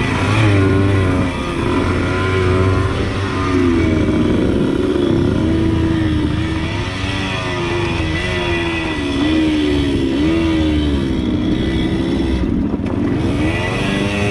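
Suzuki TS100 two-stroke single-cylinder dirt bike engine under way. Its pitch rises and falls again and again as the throttle is opened and eased off, with a brief let-off near the end.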